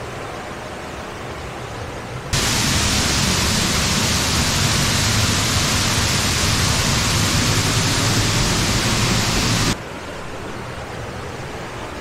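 Sgwd-yr-Eira waterfall's curtain of falling water, heard from the path behind it: a steady rushing roar that jumps louder about two seconds in and drops back shortly before the end.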